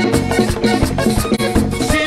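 Live Latin dance band music with a steady drum beat and shaken or scraped metal percussion. A male singer comes in right at the end.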